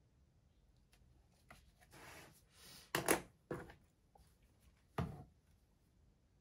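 A paper textbook page being turned, with a rustle of paper, then three dull thumps, the loudest about three seconds in.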